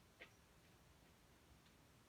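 Near silence: room tone with one faint click about a quarter second in and a few fainter ticks after it.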